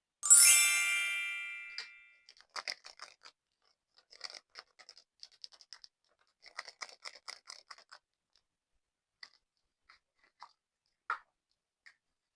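A bright ringing chime near the start that fades out over about a second and a half. Then slime being squeezed and pressed, giving clusters of small sticky clicks and crackles, with a few lone clicks near the end.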